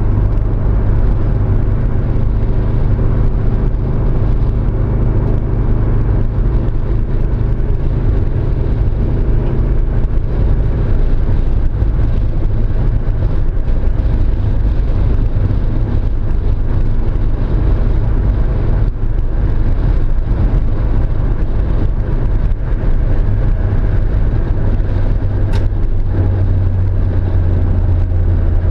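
Mazda Miata's inline four-cylinder engine running at a fairly steady speed, with a misfire on cylinder 2.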